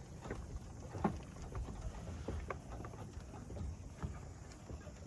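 Footsteps on the wooden boards of a suspended treetop walkway, a run of irregular knocks over a low rumble.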